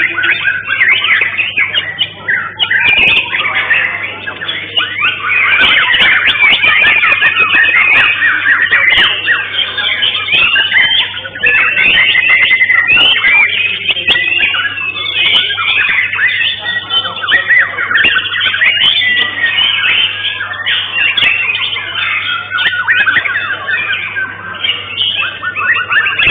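White-rumped shamas (murai batu) singing rapid, varied, whistling and chattering song, several birds at once with no break.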